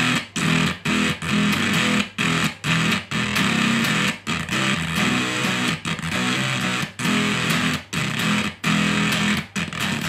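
Electric guitar played in choppy, repeated strummed chords through a DIY Unshaven Fuzz pedal circuit with its C2 bass capacitor removed: heavily distorted, noisy and unstable, with a steady hum underneath picked up by the unboxed circuit's long leads.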